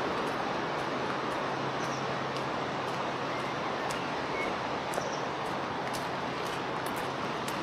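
Steady rushing of the Iller river running high in flood, with a few faint bird chirps and light ticks over it.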